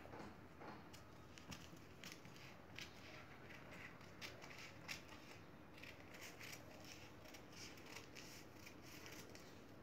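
Scissors snipping through a sheet of newspaper, a faint run of short, irregular cuts coming about one or two a second.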